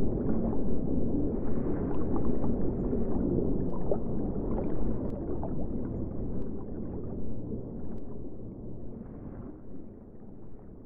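Underwater ambience: a low, rumbling, gurgling water noise with a few faint clicks, fading away steadily toward the end.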